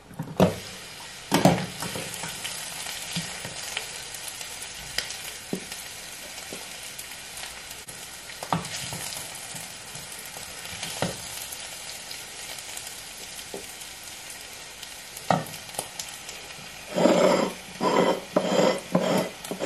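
Hot pan of stir-fried cabbage sizzling steadily while a utensil knocks against pan and plate now and then as the food is served. Near the end comes a run of about five louder knocks.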